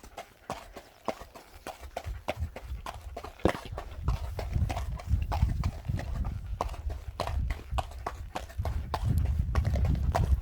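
Footsteps walking at a steady pace, a run of short irregular steps. From about four seconds in, wind rumbles on the microphone.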